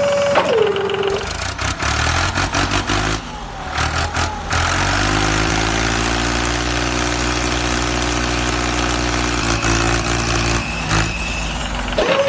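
A mini tractor's small engine starting up, running unevenly with knocks for a few seconds, then settling into a steady idle. A high whine drops in pitch and cuts off about a second in, and returns near the end.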